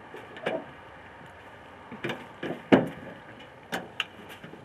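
Several short, irregular knocks and thumps, the loudest a little past halfway through.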